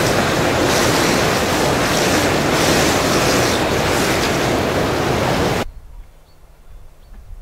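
Whirlpool bath jets churning the water, a loud steady rush that cuts off suddenly near the end, leaving only a faint low hum.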